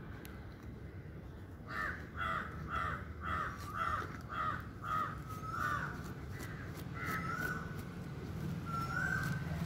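Crow cawing: a quick run of about eight caws at roughly two a second, then a few longer, drawn-out calls.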